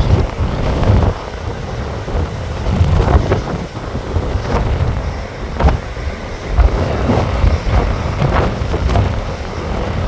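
Wind buffeting the microphone in uneven gusts over the wash of large ocean surf breaking and spreading along a rocky shore.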